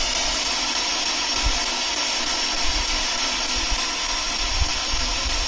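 Steady, fairly loud hiss of noise, strongest in the high treble, with a few faint low thumps now and then.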